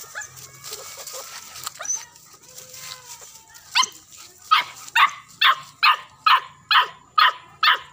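A novice hunting dog in training barking in a fast, regular series of about nine sharp barks, roughly two a second, beginning about four seconds in.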